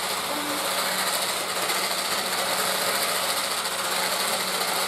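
Electric hand mixer running at a steady speed with an even motor hum, its beaters whisking cake batter of butter, sugar and eggs in a bowl.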